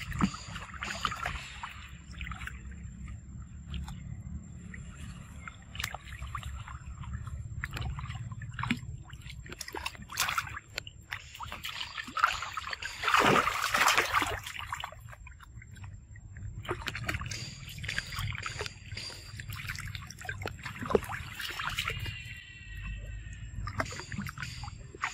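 Water sloshing and splashing as macaques swim and dive in a pool, over a steady low rumble, with the loudest splashing about halfway through. A short high-pitched call sounds near the end.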